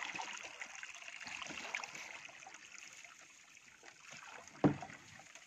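Water trickling and splashing around a small boat, with scattered small drips and one sharp knock about four and a half seconds in.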